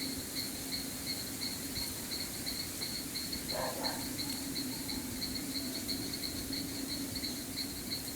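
Chorus of frogs and insects: a steady, evenly pulsing high trill over a low continuous chorus. One short lower call stands out about three and a half seconds in.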